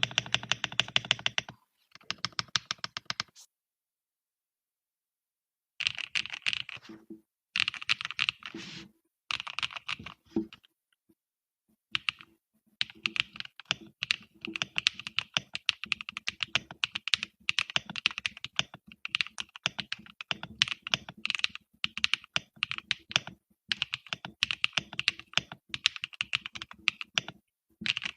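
Typing on a ZUOYA GMK67 gasket-mount mechanical keyboard: rapid keystroke clatter in bursts, with a pause of about two seconds a few seconds in.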